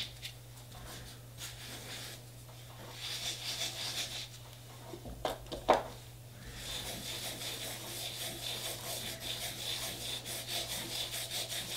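Cotton pad rubbing back and forth over a metal nail-stamping plate, wiping leftover polish off it. The rubbing comes in quick strokes, with a pause near the middle broken by one short, sharp knock.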